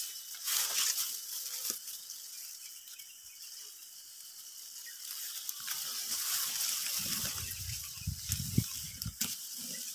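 Outdoor field ambience: a steady high hiss, with wind buffeting the microphone in irregular gusts from about seven seconds in and a single sharp click near the end.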